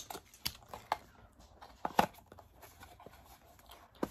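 A small cardboard blind box being handled and opened by hand: irregular taps, clicks and light scrapes of fingers on the cardboard, the sharpest right at the start and about two seconds in.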